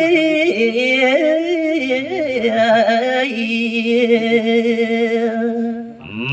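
A man singing a line of Balinese geguritan verse into a microphone, long held notes with a wavering vibrato and ornamented melismatic turns. The line ends about six seconds in.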